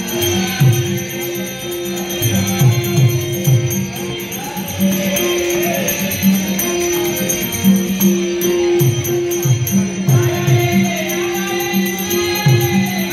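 Live Dashavatar accompaniment: a harmonium holds steady notes, a pakhawaj gives regular deep strokes that bend in pitch, and small hand cymbals (taal) keep time with bright jingling. A male voice sings a wavering melodic line over it at times.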